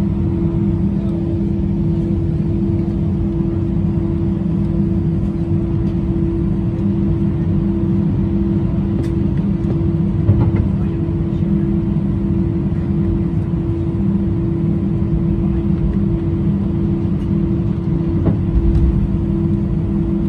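Cabin noise inside an Airbus A319 taxiing after landing: the engines at idle and the cabin air give a steady hum with two steady low tones. A brief knock comes about ten seconds in, and a low thump near the end.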